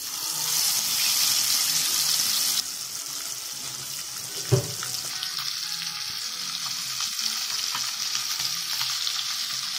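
A masala-coated whole paarai fish (trevally) sizzling in hot oil as it is laid into the pan. The sizzle is loudest for the first two and a half seconds, then settles to a steady frying hiss, with a single knock about halfway through.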